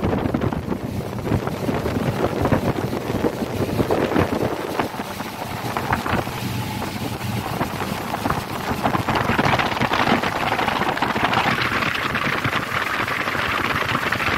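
Motorboat running at speed, with wind buffeting the microphone over the engine and the rushing water of the wake. The hiss grows louder about two-thirds of the way through.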